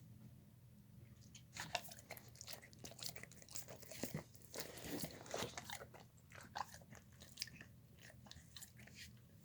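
A dog eating a soft slop of chicken, rice and beans, with irregular chewing and smacking that is busiest around the middle.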